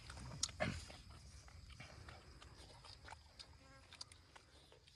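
Faint eating sounds: people chewing and tearing grilled duck meat by hand, with small scattered mouth clicks and a brief louder mouth noise about half a second in.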